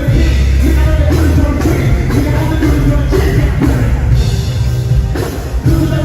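Live music during a stage sound check: a singer's voice over a band track with heavy bass and a steady beat.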